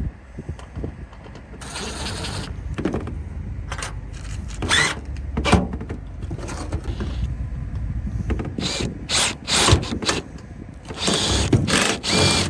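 Hands-on work fitting a makeshift hood latch: repeated knocks and metal clanks over a steady low rumble. Two longer power-tool bursts, one about two seconds in and one near the end, fit screws being driven to fix the latch.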